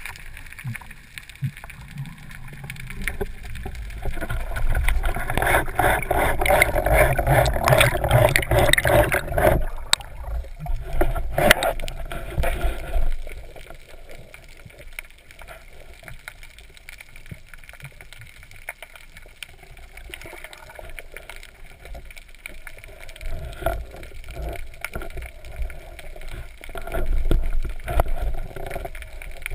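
Muffled underwater water noise as a freediver swims up through open water, a low rushing and gurgling. It grows rougher and louder from a few seconds in until about ten seconds in, has a short louder burst just after, then settles to a quieter low rumble.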